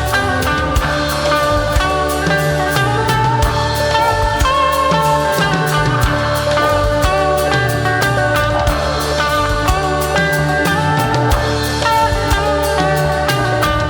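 Rock band playing live, an instrumental passage with electric guitar and drum kit over a steady beat.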